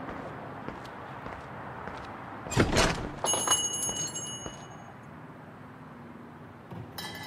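A shop door opening with a thunk about two and a half seconds in, followed by its door chime: high, clear metallic ringing for about a second. A second ring starts near the end.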